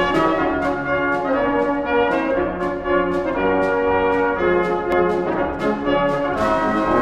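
Intro music led by brass instruments, with orchestral backing and a steady beat of about two strokes a second.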